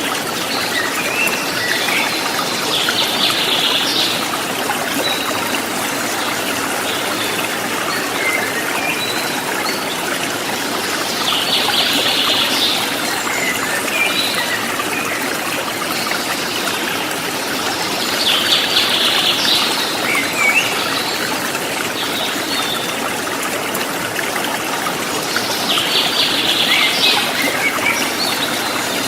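Shallow river flowing over rocks with a steady rush and trickle. A bird sings a short bright phrase four times, about every seven seconds, with a few faint chirps between.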